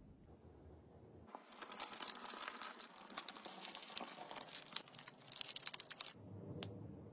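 Brown kraft paper crinkling as it is folded and pressed around a small packed item: a dense rustle with many sharp crackles, starting about a second in and stopping about a second before the end, followed by a couple of light clicks.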